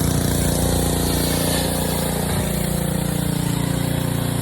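Gas pressure washer's small engine running steadily at an even pitch.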